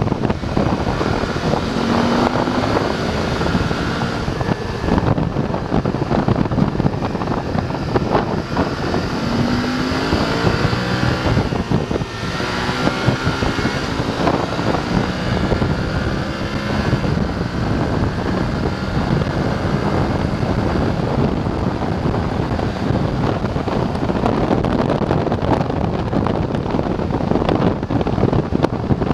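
BMW F 850 GS parallel-twin motorcycle engine under way, its note rising and falling several times as the bike accelerates and slows, with heavy wind noise on the microphone.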